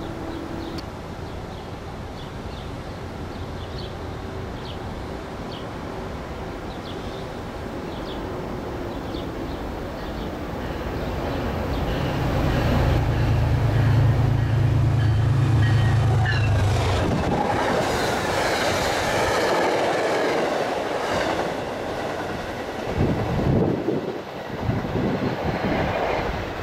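MBTA commuter rail train with a diesel locomotive passing a station platform. The locomotive's engine hum grows loud about twelve seconds in, then the wheels rush by along the coaches, with a few heavy clacks near the end.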